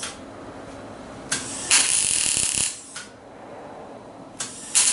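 Electric arc welder tack-welding steel bumper-bracket pieces held in locking pliers. There are two bursts of welding, each about a second long, each preceded by a short click; the first comes just before the middle and the second near the end.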